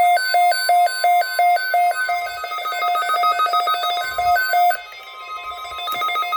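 Electronic emergency alert tones: two pitches switching rapidly back and forth, about three to four beeps a second. About two seconds in the pattern turns into a faster, busier beeping, and it drops quieter near five seconds in.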